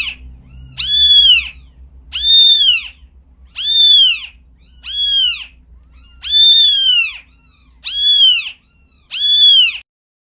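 A cat meowing over and over, about eight high-pitched meows roughly a second apart, each rising then falling in pitch. It cuts off abruptly near the end.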